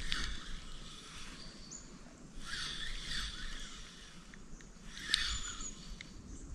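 Spinning reel being cranked in three short spurts of about a second each, as a lure is wound in.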